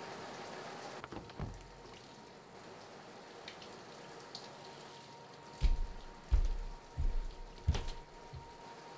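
Faint hiss of shower water that drops away about a second in; then, a little over halfway through, a slow run of heavy, dull thuds, about six in three seconds: footsteps on a floor.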